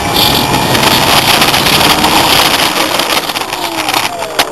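Electric motor and propeller of an AcroMaster RC aerobatic plane whining steadily in flight, its pitch dropping near the end. Heavy wind buffets the microphone throughout.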